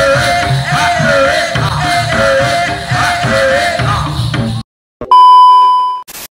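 Live Jaranan gamelan music: drums beat a steady pattern under a wavering, ornamented high melody. About four and a half seconds in the music cuts off abruptly, and after a short gap a loud steady test-tone beep of the kind that goes with TV colour bars sounds for about a second.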